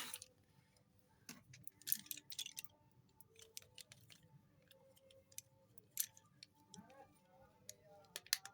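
Slate pencils clicking and snapping: scattered sharp clicks, with a short cluster of crackles about two seconds in and a sharper snap about six seconds in.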